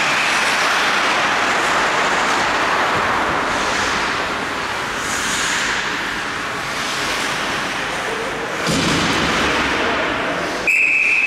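Ice hockey rink noise from play on the ice, ending in a sharp referee's whistle blast near the end.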